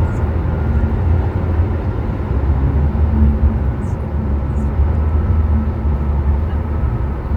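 Steady low road and engine rumble heard from inside the cabin of a BMW F07 5 Series Gran Turismo 20d, a four-cylinder diesel, while it cruises.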